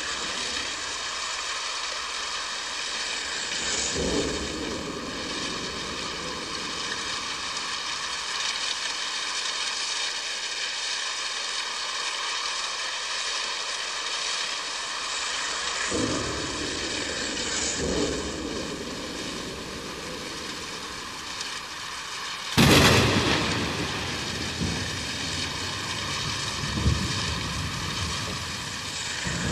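Steady rain with thunder rumbling at intervals, and one sudden loud thunderclap about three quarters of the way through that dies away in a rumble over a couple of seconds.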